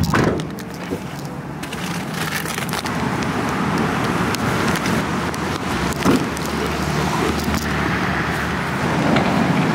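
Steady road traffic noise with scattered clicks and crackles.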